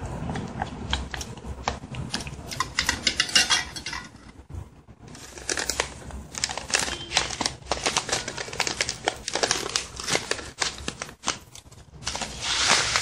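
A spatula scraping and tapping against a stainless steel bowl as melted chocolate is stirred, with a plastic bag crinkling. There is a brief lull about four seconds in, and a denser stretch of rustling near the end.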